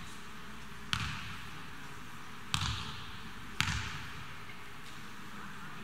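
A basketball bouncing three times on the court, irregularly spaced, each bounce a sharp thud with a short echo in a large hall, over steady background noise.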